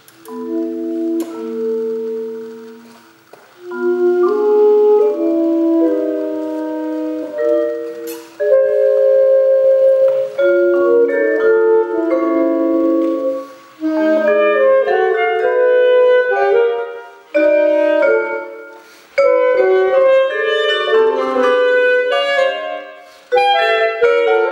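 Alto saxophone and vibraphone playing together. The piece opens with ringing vibraphone chords, and from about halfway both instruments break into busier, quicker lines of short notes.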